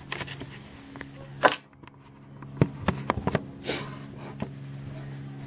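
Handling noise of a camera being moved and set in place: a sharp knock about one and a half seconds in, then a quick cluster of clicks and a brief rustle, over a steady low hum.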